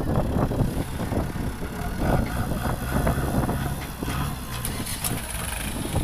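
JCB 3DX backhoe loader's diesel engine running with a steady low drone as the machine works its loader bucket, with scattered knocks and rattles over it.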